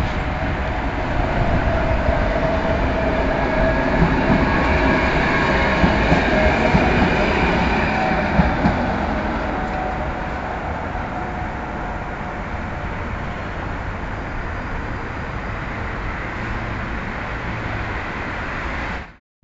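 Sheffield Supertram tram running past on street rails. Its motor whine and wheel-on-rail rumble are loudest through the first half, with a couple of sharp knocks about eight seconds in, then fade as it moves away.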